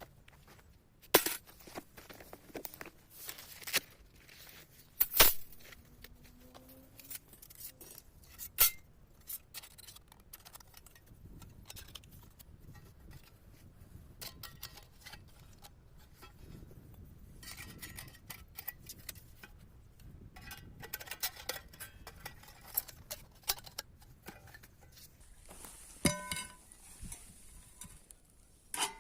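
Irregular sharp clinks and knocks of objects being handled, with a ringing clink near the end.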